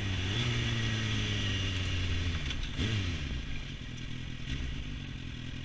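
Suzuki 1000 cc inline-four sport bike engine running under way, heard from on board with wind rush over the microphone. The engine note dips sharply twice, at the start and again about three seconds in.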